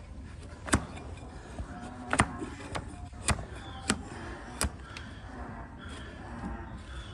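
Donkey hoof being pared with a heavy flat hoof-trimming blade: about six short, crisp cuts through the hard hoof horn, half a second to a second apart, stopping about two-thirds of the way in.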